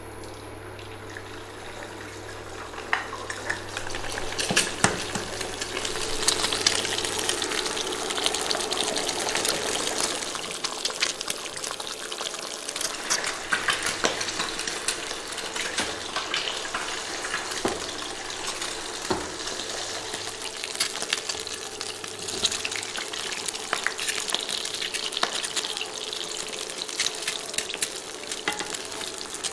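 Eggs frying in hot oil in a nonstick wok: a steady sizzle with fine crackling spatter, which swells about four seconds in.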